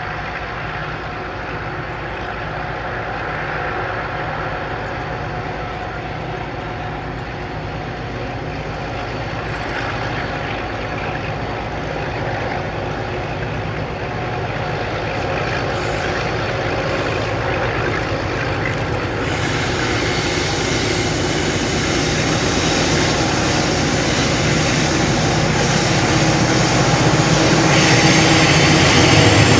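Diesel locomotives of a loaded grain train, EMD- and ALCO-powered, labouring up a grade: a steady engine drone that grows louder as the train draws near, with a brighter hiss joining in about two-thirds of the way through.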